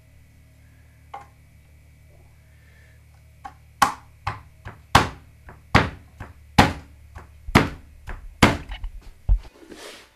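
A run of about eight sharp knocks, a little under a second apart, struck on a loudspeaker cabinet, starting about four seconds in over a low steady hum.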